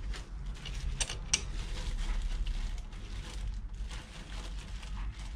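Irregular metallic clicking and clattering of hand tools and parts being worked on a car's brake assembly, with two sharp metal knocks about a second in.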